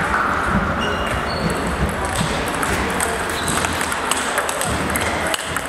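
Celluloid-type table tennis ball clicking off the bats and the table in a rally, a quick run of sharp ticks, with more ball clicks from neighbouring tables in the hall.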